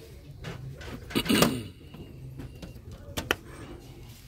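Handling noise as glass jar candles are picked up and moved on a metal store shelf: a brief scraping rub about a second in and a sharp clink about three seconds in, over steady room hum.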